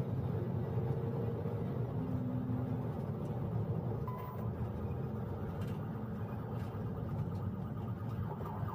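Police cruiser's engine and tyre noise at speed, a steady low rumble heard from inside the car.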